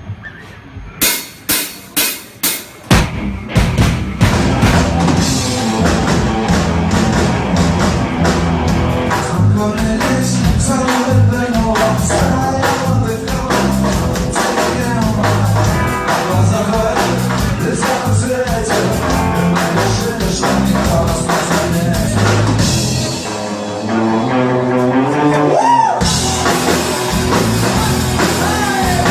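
Live rock band starting a song: about five sharp separate hits, then the full band comes in about three seconds in with drum kit, guitar and singing. Near the end the band eases off briefly and comes back in louder.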